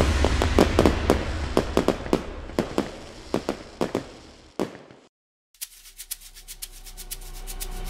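Firework sound effect: a low rumble with scattered crackling pops that thin out and fade, stopping about five seconds in. After a brief silence, a fast rattling swell rises steadily in volume toward the end.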